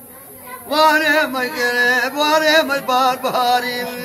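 A solo man's voice singing in long, wavering held notes, starting a moment in.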